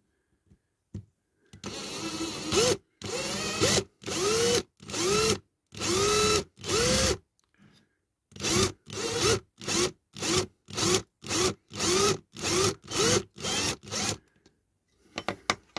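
Hand-held electric drill run in short trigger pulses, each spinning up and winding down, as a large twist bit cuts into the peened-over mushroom head of a post on a diecast model car body. After a first longer run, the pulses come about once a second, pause briefly, then quicken to about two a second.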